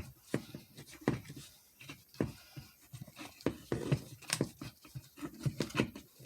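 Handling noises from working on the steering-column switch assembly: irregular small clicks and knocks of plastic and rubber parts, with some rubbing in between.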